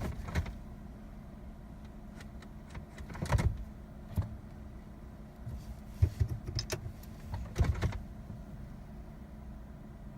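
Short knocks and rattles in the cabin of a Jeep that will not start, as the driver works the controls, over a steady low hum. The cluster comes about a third of the way in, then again around the middle and two-thirds through.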